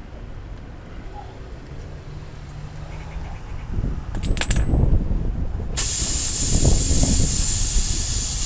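A short metallic clink about four seconds in, then a loud, steady hiss of compressed air for nearly three seconds that cuts off suddenly.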